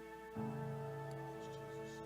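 Soft instrumental worship music of held, sustained chords, with a new chord and low bass note coming in about half a second in.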